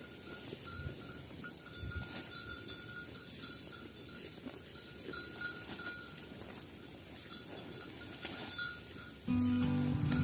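Bells clinking on a herd of grazing cattle over a field's steady background noise. Music starts about nine seconds in.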